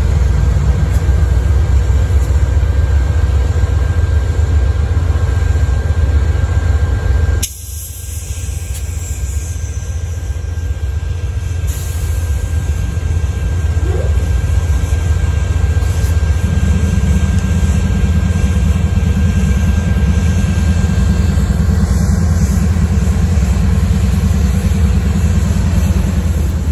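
Amtrak GE P42DC Genesis diesel locomotives pulling a passenger train away from a station, a loud, steady low engine rumble. The sound dips suddenly about seven seconds in, then builds again, and a deeper, heavier note joins the rumble about sixteen seconds in as the locomotives come close.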